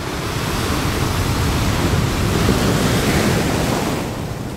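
Sea waves washing over a rocky shore: a rushing noise that swells to a peak about two and a half seconds in and eases off near the end.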